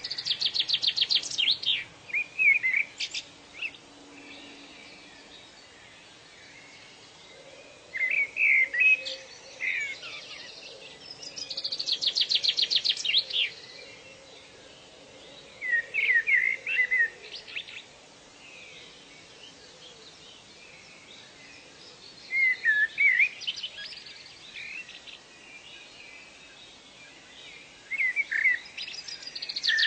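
Songbird song: short phrases of sweeping chirps and a fast, high trill, repeated every few seconds with quiet gaps between.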